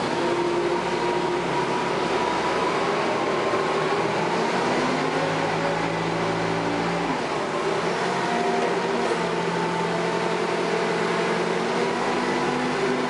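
LP-fuelled engine of a Clark GCS-25MC forklift running steadily. Its pitch rises for a couple of seconds about five seconds in, and again from about eight seconds in, as the mast hydraulics work the forks.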